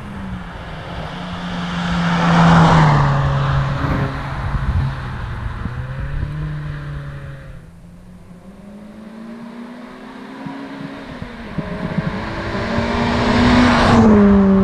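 Renault Clio 197's 2.0-litre four-cylinder with a decat, straight-piped exhaust driving past twice. It passes loudly about two seconds in, its note dropping in pitch as it goes by and fades. It then approaches again with the engine note climbing as it accelerates, and passes near the end.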